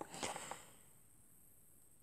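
Near silence, with a faint soft sound in the first half-second.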